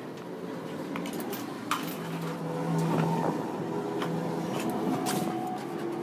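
Metalworking workshop sounds: scattered metal clanks and light knocks over a steady machine hum.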